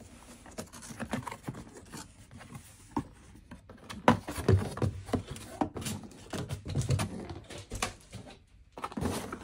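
Cardboard packaging being handled: box flaps unfolded and folded back, with irregular scraping, rustling and light knocks of cardboard on cardboard, busiest in the middle.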